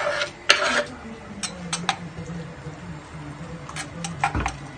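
Kitchen utensils and cookware clinking and knocking while cooking: a louder clatter about half a second in, then scattered light taps and clicks, with a dull thump near the end.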